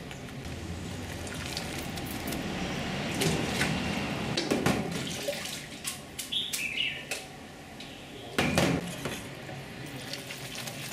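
Cooking at a noodle stall: hot water sloshing and splashing around a noodle strainer, with steel pots, pans and utensils clinking. A louder splash comes about eight seconds in as noodles and water are tipped into a stainless steel tray.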